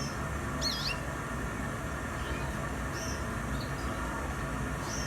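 Caged canaries chirping: a few short, high calls with quick up-and-down wiggles in pitch, scattered over several seconds above a steady low hum.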